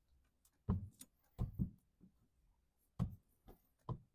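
Irregular knocks and taps, about seven in four seconds, from tint film being pressed and worked onto the inside of a pickup truck's windshield.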